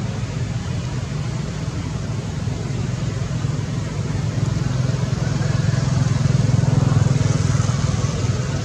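A motor vehicle's engine running, swelling louder about five seconds in and easing again near the end, as if passing by.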